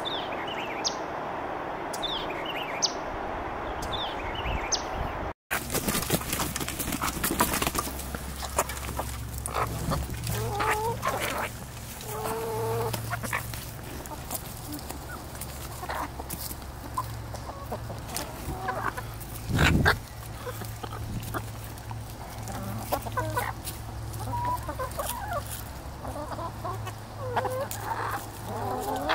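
A flock of backyard hens with a rooster clucking and pecking at cantaloupe, with many sharp pecking taps over a steady low hum and one loud thump about two-thirds of the way through. For the first five seconds there is only a steady hiss with a few short, high, falling bird chirps.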